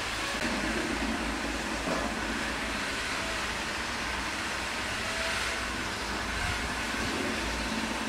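Steady background noise, a low rumble under an even hiss, with no distinct event.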